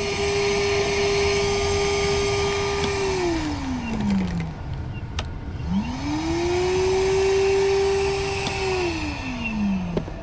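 Vacuum sucking water and debris out of a clogged AC condensate drain line. Its motor runs steadily, is switched off about three seconds in and winds down, is switched back on with a click and a rising whine, then is switched off and winds down again near the end.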